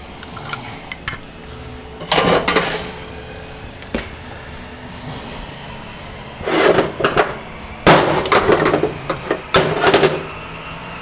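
Heavy steel transmission parts of a Ford 5R110W clanking and scraping against each other and the case as they are handled during teardown. There is a short run of clanks about two seconds in, then a longer run of ringing metal knocks from about six and a half to ten seconds in.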